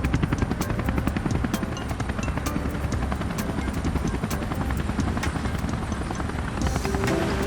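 Helicopter rotor sound effect: a fast, steady beating of the blades, with background music under it. The music's melody comes up again near the end.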